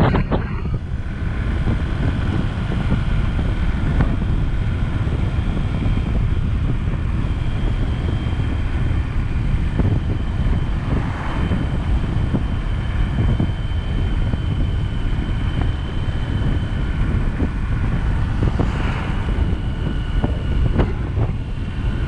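Steady rumble of a moving vehicle on a paved road, with wind buffeting the microphone and a faint high steady whine above it. Two brief swells, about halfway through and near the end, from something passing.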